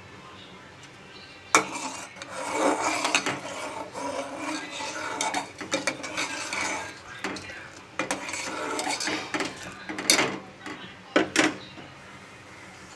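Metal spoon stirring and scraping in a pot of reduced milk, with sharp clinks of spoon on pot about one and a half seconds in and a few more near the end.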